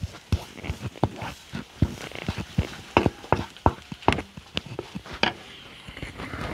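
Flat spatula scraping and knocking against a pan while stirring chopped onions being sautéed: a string of irregular sharp clicks, about two a second, thinning out near the end.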